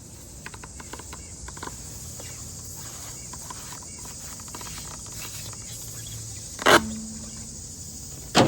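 Insects chirring steadily at a high pitch, with light clicks in the first couple of seconds and two short, sharp knocks about a second and a half apart near the end.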